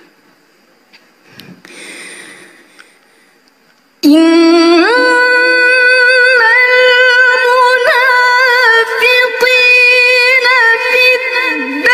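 A female Qur'an reciter (qari'ah) chanting Arabic in melodic tajwid style into a microphone. The first four seconds are quiet, then her voice comes in suddenly on a low note, glides upward and holds a long, ornamented note.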